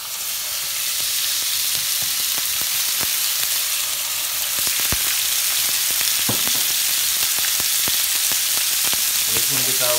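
Diced lamb searing in a smoking-hot frying pan, a steady sizzle that builds over the first second as the meat goes in and then holds, with a few light knocks from the wooden spatula.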